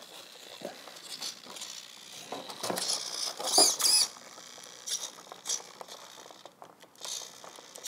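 Small plastic-gear RC tail servo driven by a servo tester, whirring briefly with a wavering whine about three to four seconds in, amid small clicks and rustles of handling. The servo is being checked for gears stripped in a crash.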